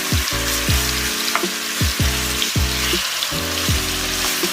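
Chicken pieces frying and sizzling in a pot of browned, caramelized sugar, a steady crackling hiss. A music track with a beat about twice a second plays underneath.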